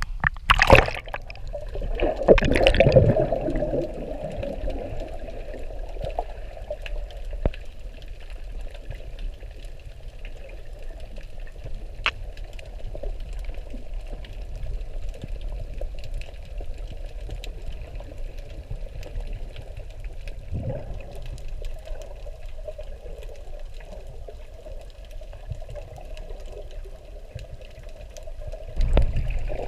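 Sea water sloshing and bubbling around a camera held in the water while snorkelling, with a few louder splashes in the first three seconds and another swell near the end.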